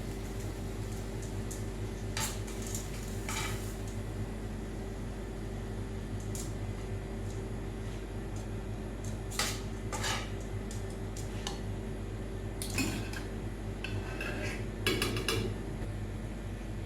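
Metal utensils clinking and scraping against plates and a pan in a string of short, irregular knocks, a few of them close together near the end, over a steady electrical hum from a faulty sound feed.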